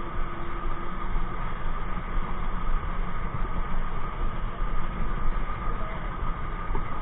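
Amusement ride running: a steady mechanical rumble with a faint constant whine through it.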